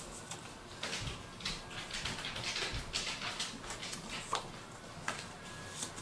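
Paper journal cards rustling and sliding over one another as they are handled and shuffled, with a few light taps.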